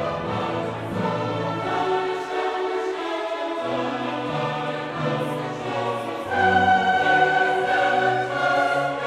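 Background music: a choir with orchestra holding long notes, swelling louder about six seconds in.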